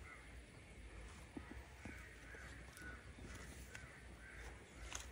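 Near silence: faint outdoor ambience, with a few light clicks as wooden beehive frames are handled.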